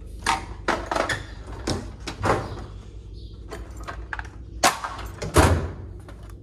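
Handling noise around a metal rolling tool cart: eight or so short scrapes and knocks, the loudest two near the end.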